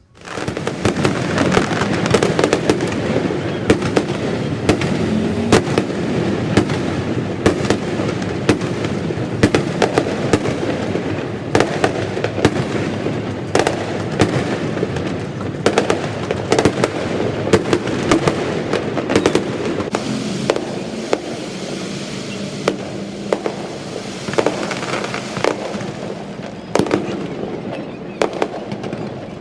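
Fireworks display: a dense, continuous crackle of many bursts, with sharp bangs every second or so.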